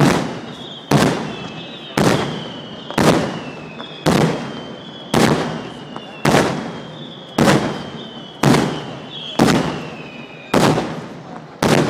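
Fireworks going off in a steady series of loud bangs, about one a second, each fading away as it echoes. A faint high whistle drifts slightly downward between the bangs.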